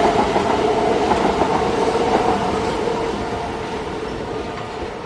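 A train passing: a steady rumbling rush with a few steady tones above it, slowly fading.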